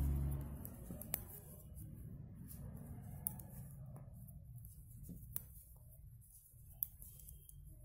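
Metal knitting needles clicking now and then as plain knit stitches are worked: a few sharp, faint ticks, several seconds apart, over a low hum. A low rumble dies away just after the start.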